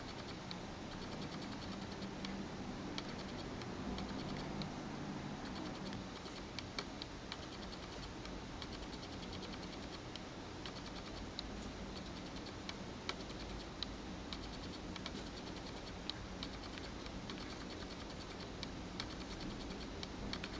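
Light, irregular clicks of fingertips tapping and swiping on an HTC Sensation 4G smartphone's glass touchscreen, over a steady low hum.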